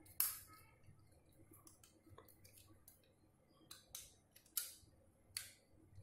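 Screwdriver tightening a screw on the sheet-metal clamp of a small 12 V DC motor: a handful of sharp metallic clicks and short scrapes at uneven intervals, the loudest just after the start.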